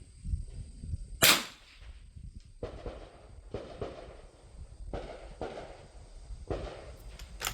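A single shot from a Winchester Model 52 .22 rimfire target rifle about a second in, sharp and brief. Softer handling sounds follow, with a few quick clicks near the end.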